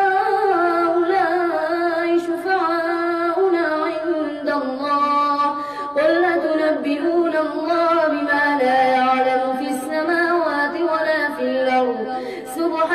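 A boy's voice reciting the Quran aloud in a melodic chant (tajweed), the high voice rising and falling in long drawn-out phrases, with a brief pause for breath about six seconds in.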